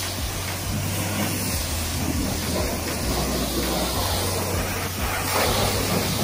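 Pressure washer jet spraying water against a car's wheel and lower body: a steady hiss of spray with a steady low hum underneath.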